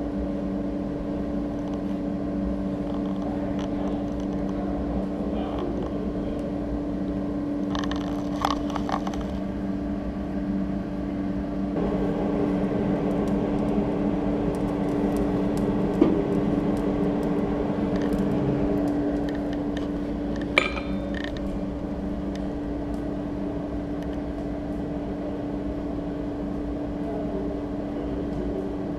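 Steady machine hum, a little louder for several seconds in the middle, with two sharp clicks about four seconds apart.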